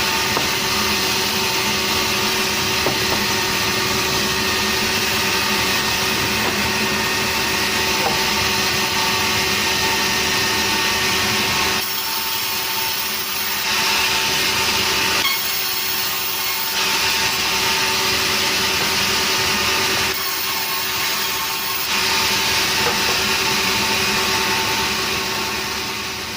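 Sawmill saw running and cutting through a log of nering wood: a steady, loud whine over a machine hum. The cut eases off and comes back a few times through the middle.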